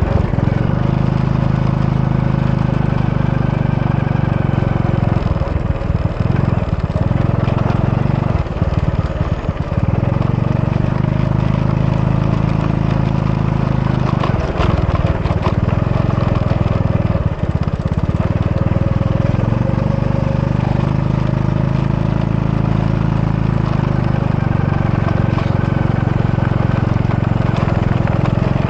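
Steady roar of falling water from a waterfall, with most of its strength in the low rumble.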